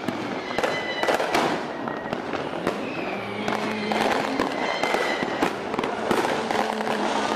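Fireworks going off in many irregular bangs and crackles, with music playing underneath.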